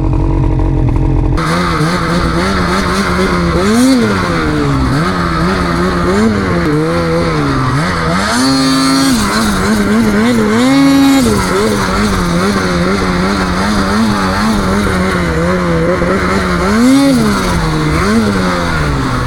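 Snowmobile engine revving up and down over and over as the rider works the throttle, with several sharp high revs.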